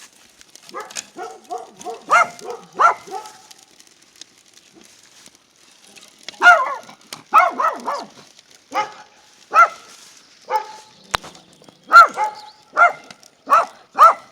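Dog barking repeatedly in short, high-pitched barks: a quick cluster about a second in, then a steady run of single barks from about six seconds in.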